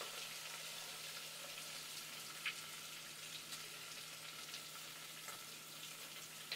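Sliced onions frying in hot mustard oil in a pressure cooker pot: a faint, steady sizzle with a few small crackles.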